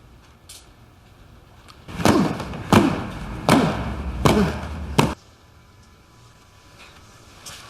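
Five heavy thuds, evenly spaced about three quarters of a second apart, each followed by a brief ring that falls in pitch.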